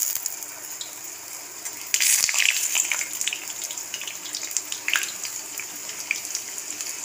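A maida poori deep-frying in hot oil: a steady sizzle with scattered crackles as the skimmer presses it under the oil, surging louder for about a second around two seconds in, as the poori puffs up.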